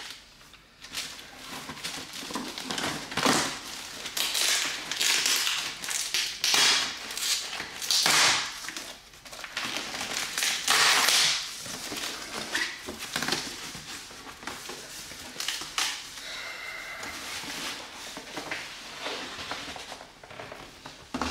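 Cardboard shipping box being opened by hand: flaps folded back and plastic wrap and packaging rustling and crinkling in a string of loud, irregular rustles and scrapes.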